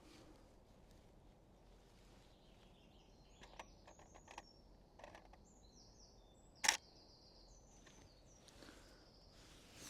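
Small woodland songbirds calling with short, thin, high-pitched notes over a quiet background, with a few faint ticks. A single sharp camera shutter click sounds about two-thirds of the way through.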